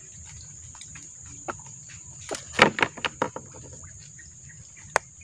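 Steady high-pitched buzz of night insects, with a quick run of sharp knocks and clicks about two and a half seconds in and a single sharp tick near the end.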